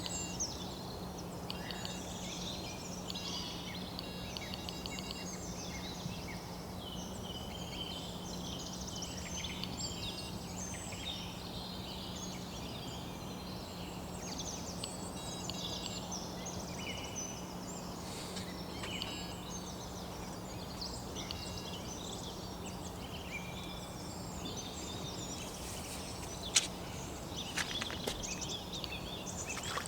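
Birds singing and calling: a continuous chorus of short chirps and warbles over a steady low hum, with a few sharp clicks near the end.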